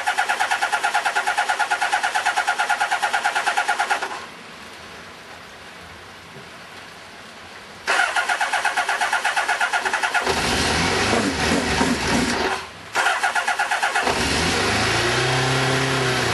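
Kawasaki GPZ600R's inline-four engine being cranked on its electric starter: a four-second burst of fast, even cranking pulses, a pause, then a second crank on which it catches about ten seconds in. It runs raggedly, dies briefly and is cranked again, then keeps running with the revs rising and falling. It is a first start on choke after 18 months unused, and it is firing on only three of its four cylinders.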